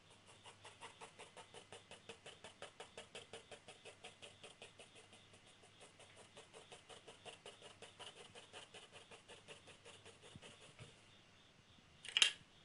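Graphite pencil shading on drawing paper: quick back-and-forth hatching strokes, about six a second, stopping near the end. Then a single short sharp clack as the pencil is set down on the easel's ledge.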